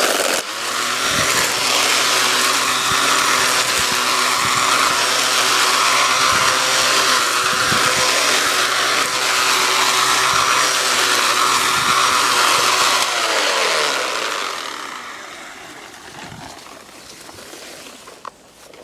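Homemade mini mower driven by a Black & Decker string-trimmer motor, running steadily with its spinning line cutting through ground-cover weeds. About 13 seconds in the motor winds down, its pitch falling and the sound dropping away.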